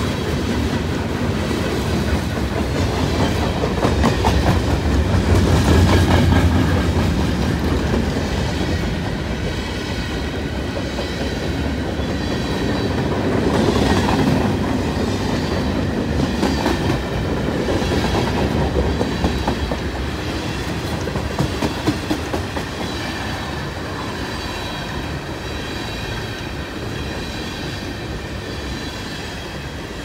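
Freight cars of a long freight train rolling past at speed: boxcars, open-top cars and tank cars. Their steel wheels make a steady rumble with a clickety-clack over the rail joints, swelling and easing as the cars go by, with a faint high ringing over it and a few sharp clacks near the middle.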